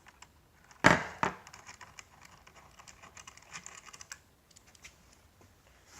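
A metallic knock about a second in, then a ratchet wrench with an 18 mm socket clicking rapidly as the swing-arm bolt of an electric scooter is loosened.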